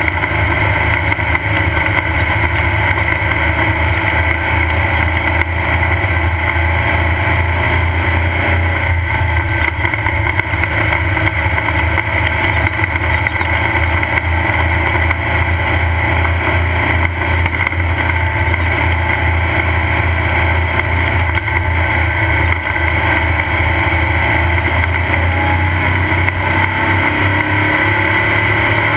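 Off-road race car's engine running steadily and loudly at an even pace, its note shifting slightly near the end.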